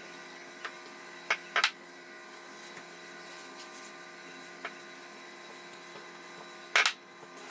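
Wooden rolling pin working gingerbread dough on a floured worktop: a few sharp knocks of the pin against the counter, a pair about a second and a half in and the loudest near the end. A steady background hum runs underneath.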